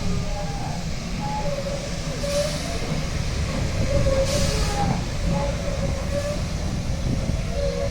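Vulcan Foundry class 12E steam locomotive running with a steady low rumble and faint squeals. Two short bursts of steam hiss come about two and a half and four and a half seconds in.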